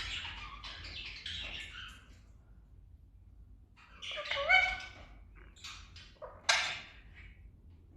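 Parrot squawking in three bouts of harsh, pitched calls: one carrying over from the start, another about four seconds in, and a few short calls at about six to seven seconds.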